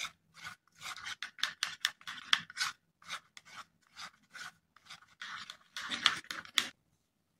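Fingers stirring and rubbing a thick, creamy hair-cream mixture against the inside of a small plastic bowl, in quick, irregular rubbing strokes about four a second. The strokes stop near the end.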